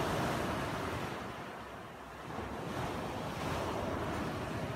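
Surf breaking and washing up a sandy beach, with wind buffeting the microphone. The wash swells at the start, eases about two seconds in, and builds again with the next wave.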